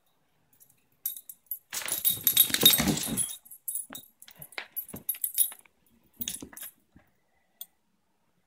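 Small dog vocalizing in short bursts, loudest in a run of about a second and a half near the start, with a light metallic jingling as it moves.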